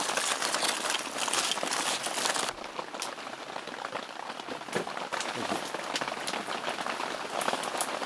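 Heavy rain pattering and drumming on a tent's fabric roof, a dense spray of small ticks. About two and a half seconds in the sound abruptly becomes softer and duller and carries on as a lighter patter.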